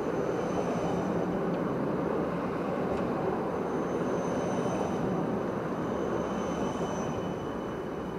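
Bernmobil city tram passing close by: a steady rumble of wheels on the rails with thin, steady high whines above it, easing slightly near the end.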